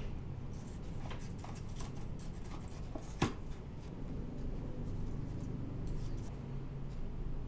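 Light clicks and taps of a small spoon against spice containers and a stainless steel bowl while spices are measured out, with one sharper tap about three seconds in. A low steady hum underneath.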